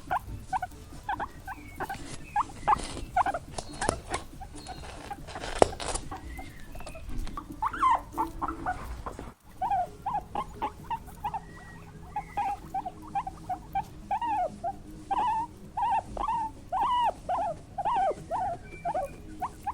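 Small animals' short, pitched squeaky calls, repeated several times a second. A cut about nine seconds in starts a second, denser run of similar squeaks.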